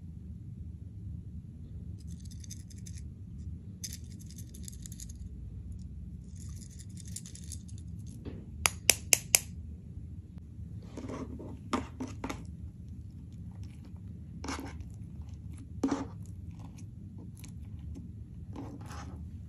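Slime and makeup being handled: a few short scratchy rustles, then four sharp clicks in quick succession, then scattered sticky pops and squelches.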